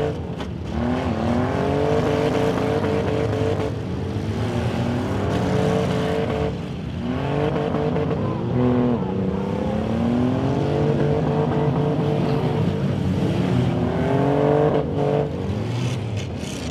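Demolition derby cars' engines revving hard, the pitch climbing and falling again and again as the drivers floor it forward and in reverse, with brief drops about half a second in, near seven seconds and near fifteen seconds.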